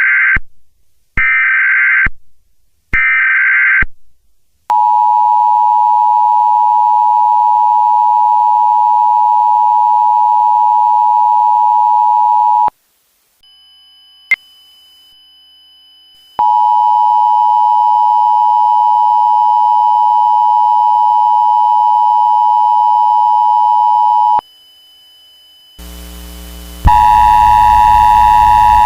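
Emergency Alert System sequence. It opens with three short bursts of SAME header data, each about a second long. A steady attention tone follows for about eight seconds, then a pause with a faint hum and a single click, then the same attention tone for another eight seconds. Near the end a louder, harsher sound made of many tones starts up.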